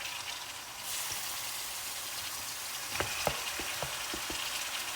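Marinated chicken sizzling in hot oil in a pan, a steady frying hiss that gets louder about a second in. Near the end, a quick run of light knocks, like a utensil against the pan.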